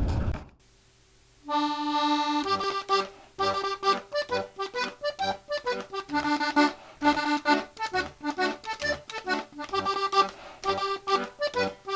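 Instrumental music laid over the footage: a lively tune of quick, detached notes that starts about a second and a half in, after the boat's background noise cuts off abruptly.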